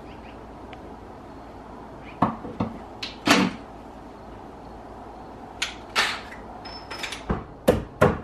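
Scattered knocks and clunks of things being handled and set down, about eight in all, over a faint steady hum. The loudest clunk comes about three seconds in.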